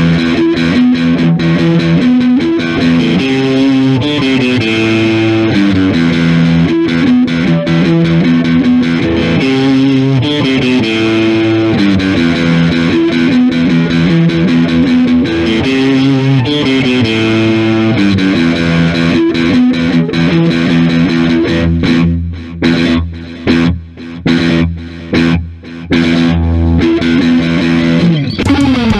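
Instrumental break of a rock song: distorted electric guitar over bass guitar, holding and changing chords. A little over two-thirds of the way through, the band stops short four times in quick succession, then the guitar slides down in pitch at the end.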